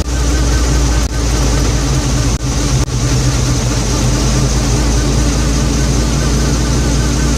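UAZ 469 under way, engine and drivetrain running steadily with a wavering whine over them: the front-end noise that the owner calls funny and possibly expensive sounding.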